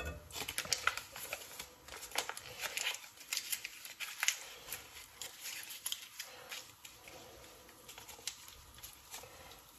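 Foil butter wrapper crinkling as it is handled and folded: a quick run of irregular crackles for the first several seconds that thins out towards the end.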